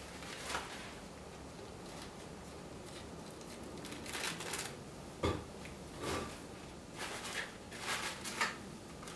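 Thin paper napkin rustling and crinkling in short, scattered bursts as it is handled and pressed onto the painting, with one sharp tap about five seconds in.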